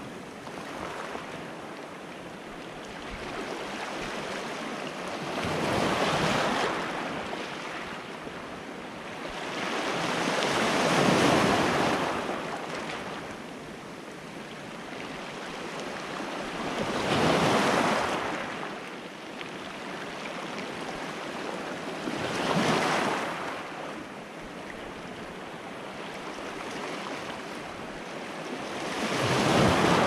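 Small Mediterranean waves breaking and washing over a pebble beach: a steady wash of surf with five louder surges, one about every five to six seconds.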